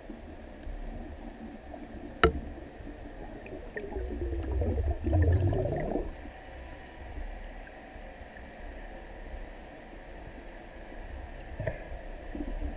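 Underwater ambience picked up by a diving camera: a steady low rumble, a single sharp click about two seconds in, and a louder watery rush with a falling pitch lasting about two seconds from around four seconds in.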